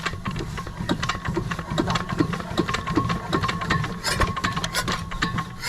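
10 hp diesel water-pump engine chugging, with a steady low rumble and a regular rhythm of sharp knocks, several a second.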